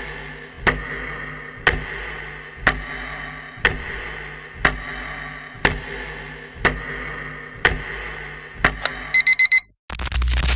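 Countdown-timer sound effect: a clock ticking once a second over a faint steady tone, ending with four quick alarm beeps about nine seconds in.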